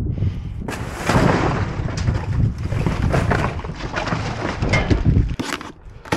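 Cardboard boxes crunching and rustling as they are grabbed and shifted inside a steel dumpster, with repeated heavy thumps and knocks against the dumpster's metal.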